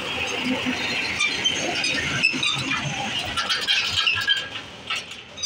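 A tractor drives past close by, its engine running and its metalwork rattling. The sound dies away after about four and a half seconds.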